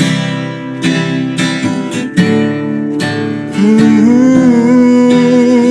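Worship-song accompaniment of strummed guitar chords. From about three and a half seconds in, a long held note slides up in pitch and wavers.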